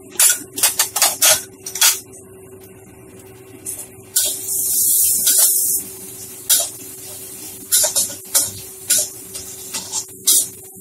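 Metal spatula scraping and knocking against a stainless-steel wok during stir-frying, in quick clusters of strokes, with a hiss lasting about a second and a half near the middle.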